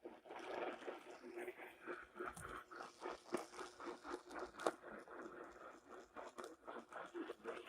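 Crackling radio static: irregular clicks and pops over a hiss from a weather radio receiver picking up a weak or noisy signal between broadcasts.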